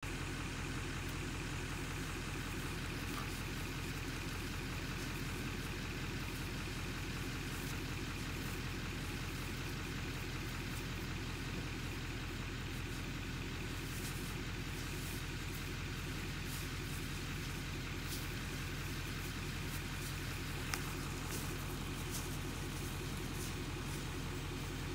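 A steady low engine hum, as of a vehicle idling, with no change in pitch or level.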